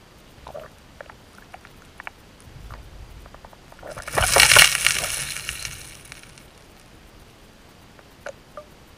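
Underwater, a hen chinook salmon rolls onto her side and sweeps her tail down over the streambed, setting off a loud rushing clatter of gravel about four seconds in as she digs and covers her eggs with stones. Single stone clicks come before and after it.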